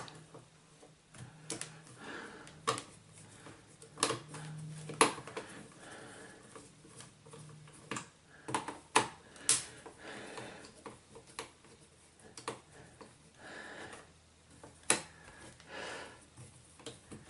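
Irregular clicks and knocks of a screwdriver turning and slipping in the screws of a Casio DH-100 digital horn's plastic back, mixed with the case being handled and shifted on the desk. The louder knocks come about four, five, nine and fifteen seconds in.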